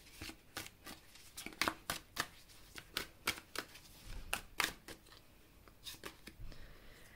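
Tarot cards being shuffled and handled: a quiet, irregular run of short card flicks and snaps, a few a second.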